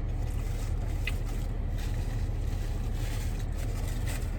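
Steady low rumble inside a car's cabin, with soft clicks and rustling from someone chewing and handling food.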